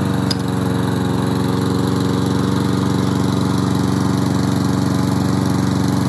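Lawn mower's small gasoline engine running steadily at a constant speed.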